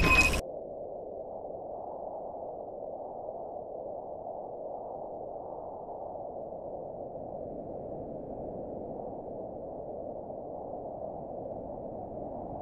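A steady, muffled rushing drone with nothing bright in it, from the soundtrack's ambient layer. It opens with a brief bright chime-like hit at the very start.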